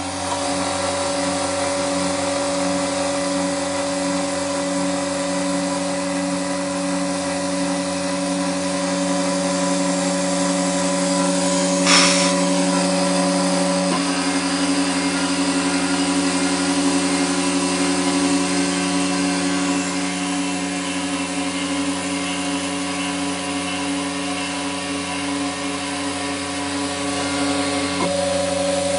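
Mini CNC's small spindle motor running steadily with a high whine as it mills a copper-clad circuit board. The tone pattern shifts about halfway through and again near the end, and there is one sharp click a little before the middle.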